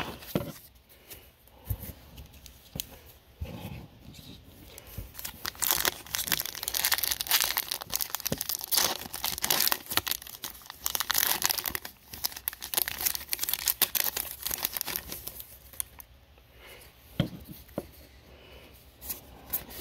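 Magic: The Gathering booster pack wrapper being torn open and crinkled by hand. The dense crackling runs from about five seconds in to about fifteen seconds in, with a few light taps before and after it.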